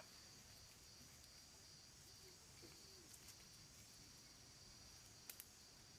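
Near silence: faint steady high drone of insects in the forest, with two soft clicks close together about five seconds in.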